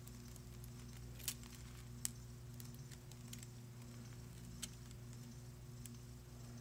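A few light, sharp clicks of small hard objects being handled, about a second in, two seconds in and again later, over a faint steady low electrical hum.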